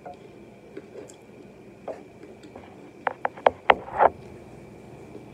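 Close-miked eating sounds of a person chewing fried chicken: soft mouth noises, then about three seconds in four quick wet smacks followed by a louder wet mouth sound.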